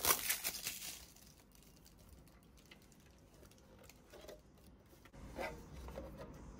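Thin plastic packing film crinkling as it is peeled off a clear polycarbonate hard disk enclosure, for about the first second. After that only faint clicks of the plastic case being handled.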